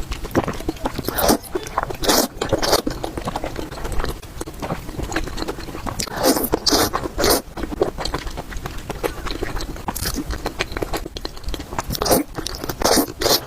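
Close-miked eating sounds: a person chewing and biting spicy noodles and dumplings, with many quick wet mouth clicks and smacks and a few louder clusters of bites.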